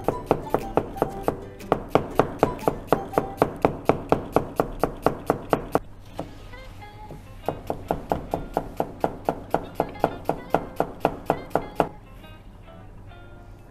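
Kitchen knife slicing an onion thinly on a plastic cutting board: quick, even strokes about four or five a second, with a short pause about six seconds in, stopping about twelve seconds in. Background music plays under it.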